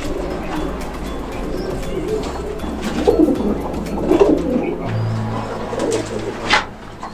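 Domestic pigeons cooing in a loft, several low, throaty coos over a steady low hum, with one sharp click near the end.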